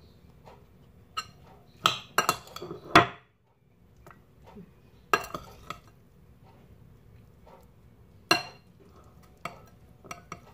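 Kitchenware clinking and knocking as stuffed eggplant halves are handled in a glass baking dish and a spoon is worked in a bowl: a quick cluster of sharp knocks about two to three seconds in, the loudest near the end of it, then single clinks about five and eight seconds in and a few lighter taps near the end.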